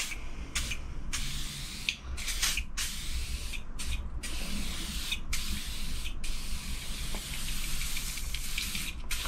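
An aerosol can of WD-40 spraying in a string of hissing bursts with brief breaks between them, wetting rusty cast-iron machine slideways to loosen the rust.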